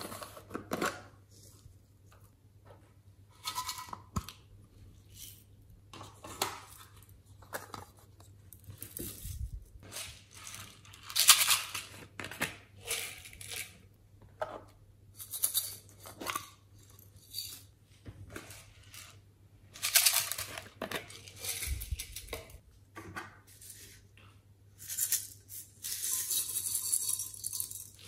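Sequins and glitter shaken out of small plastic containers, rattling and pattering onto slime in a series of short bursts, with a longer steady shaking rattle near the end.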